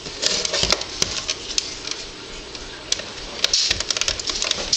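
Clicks and taps of a plastic alarm clock being handled, sharp and irregular, bunched in the first second and again over the last second and a half.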